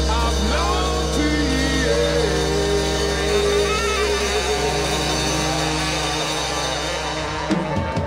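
Reggae band playing live: a long held chord over a steady low bass note, with singers' voices gliding above it in the first half. The held sound thins out and dies away near the end.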